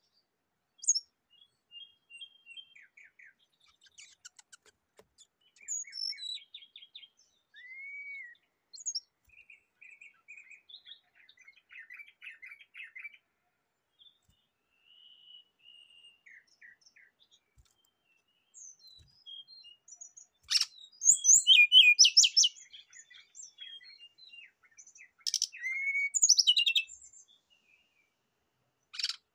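Brown-chested jungle flycatcher singing: a varied run of short chirps, rapid trills and whistled slurs, broken by brief pauses and loudest in two bursts about two-thirds of the way through.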